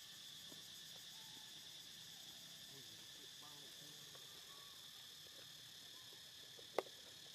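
Steady high-pitched drone of insects, with a single sharp click near the end.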